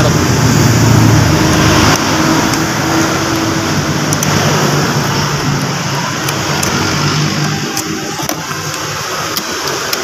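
A vehicle engine running with steady traffic noise, under scattered light metallic clicks of a wrench and pliers working a car battery's negative terminal clamp.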